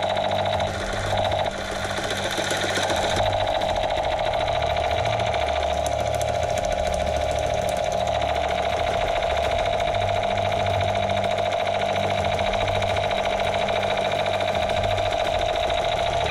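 Battery-operated toy gun firing continuously: a rapid, steady rattle with a constant buzzing tone.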